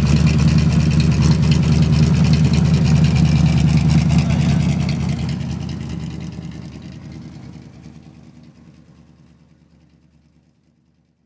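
1970 Ford Mustang Mach 1's V8 idling steadily through its headers, the exhaust note fading away from about five seconds in until gone near the end.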